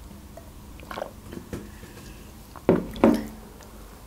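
Close-miked drinking and eating sounds: small wet mouth clicks as juice is sipped from a glass, then two sharp, loud mouth sounds close together nearly three seconds in as a bite is taken from a piece of khachapuri.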